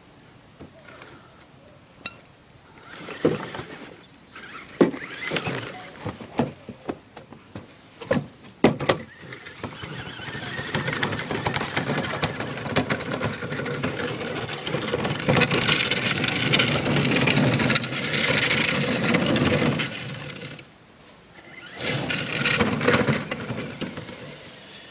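HPI Crawler King RC rock crawler with a 35-turn electric motor driving and towing a small wheeled cart over dirt and twigs: motor and gear whine mixed with crunching and rattling. A few sharp knocks come first, then about ten seconds of steady running, a brief stop, and another short run near the end.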